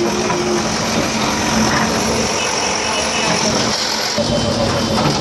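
Diesel engine of a backhoe loader running steadily, a constant engine hum with no clear strikes or crashes.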